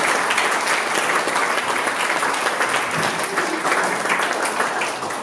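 Audience applauding, a dense stretch of many hands clapping that begins to die down near the end.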